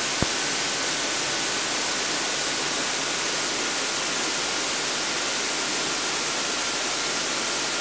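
Steady hiss of an aircraft intercom and radio audio feed between transmissions, with a faint thin whine held under it and a single small click just after the start.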